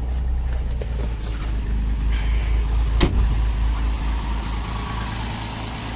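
Mercedes-Benz W111's M180 straight-six idling steadily just after starting, running on a custom-built EFI conversion that has not yet been tuned. A single sharp click about three seconds in.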